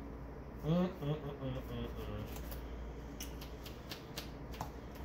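Trading cards being handled and set down on a cloth playmat: light scattered clicks and taps, mostly in the second half. A short wordless voice sound from a player about a second in is the loudest thing.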